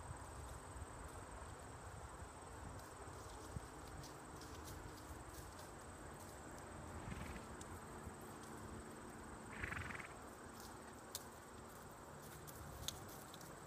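Quiet ambience with a steady high-pitched insect drone, over which a ridden horse's hooves give soft, irregular thuds and clicks on the arena footing. A brief, louder higher-pitched sound comes about ten seconds in.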